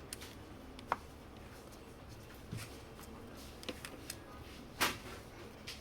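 A few scattered light clicks and taps of hands and tools working on a laptop's display assembly. The sharpest click comes near the end.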